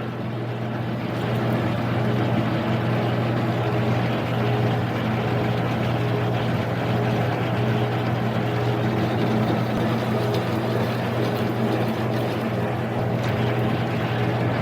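Harbor Freight mini lathe with a 1 hp AC motor upgrade running steadily under a deep 250-thousandths cut, with a strong, even motor hum. The heavy cut stalls the spindle while the pulley from the countershaft to the spindle slips.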